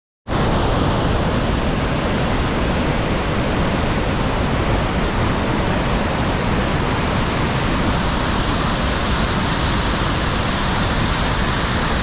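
The steady rush of the Iguaçu Falls, a dense, even noise of a large waterfall plunging onto rock and river, cutting in suddenly just after the start.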